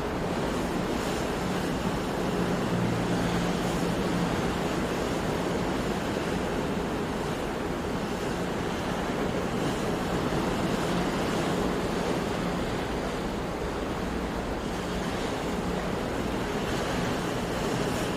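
Sea surf: waves washing in a continuous, steady rush, with no single crash standing out.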